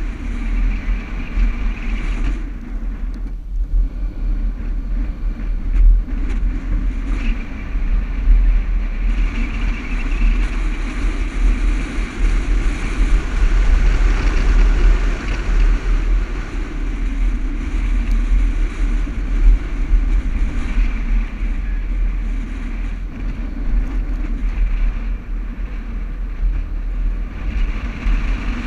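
Toyota Land Cruiser driving over desert sand dunes: a steady engine and tyre rumble with a heavy low drone that swells and eases a little as it goes.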